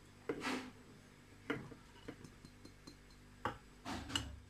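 Flour poured from a small dish into a stand mixer's bowl: a brief soft rustle, followed by a few light clicks and taps of the dish against the bowl.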